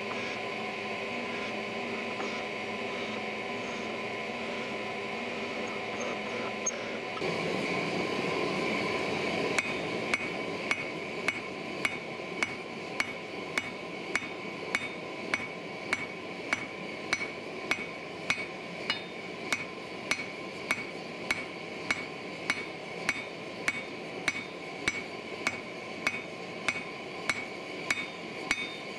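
A drill press motor hums steadily. About seven seconds in, a propane forge's steady rush takes over. From about nine seconds on, a hand hammer strikes a red-hot 1084/15n20 san mai billet on the anvil in an even rhythm, about one and a half blows a second, forging the billet out.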